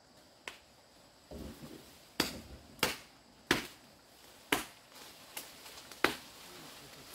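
A series of about seven sharp knocks at irregular intervals, roughly one every half second to a second, with a brief rustle between the first two.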